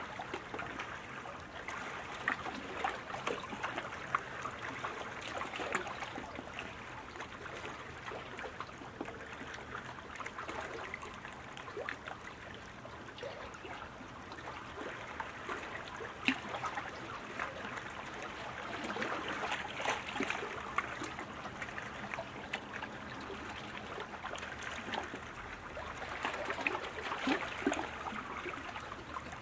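A steady rushing, crackling wash of noise like running water, swelling a little about twenty seconds in and again near the end.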